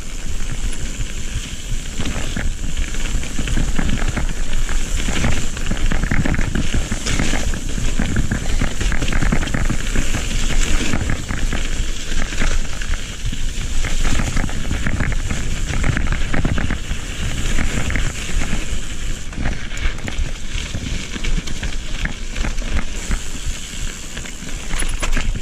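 Mountain bike tyres rolling fast over loose gravel and dirt trail, a continuous crunching and crackling of stones with the bike rattling, over steady wind noise on the microphone.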